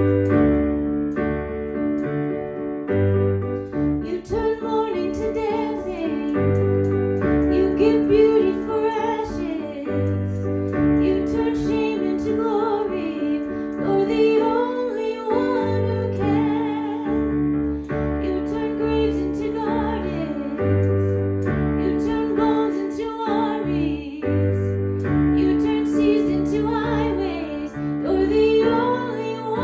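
Piano playing held chords, joined about four seconds in by a woman singing with vibrato.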